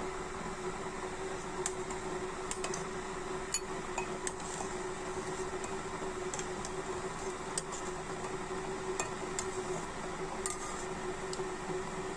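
Hot broth poured from a metal pot into a ceramic bowl of dumplings, with a dozen or so light clinks and ticks scattered through, over a steady hum.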